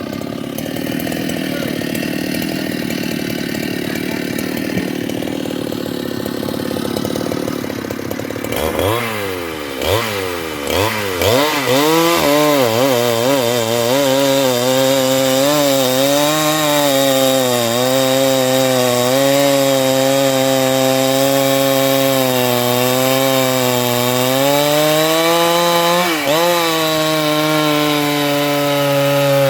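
A two-stroke chainsaw revs up in a few quick throttle blips about nine seconds in, then runs at full throttle through wood. Its pitch wavers and sags as the chain bites, with a sharp dip near the end. Before that there is only a steady hiss.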